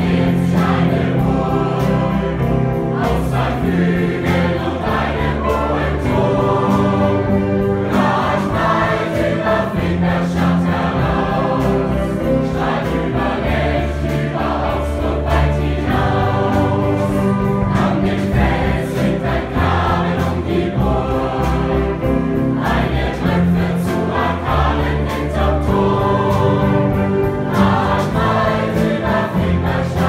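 Mixed youth choir singing a song live, accompanied by orchestra and big band.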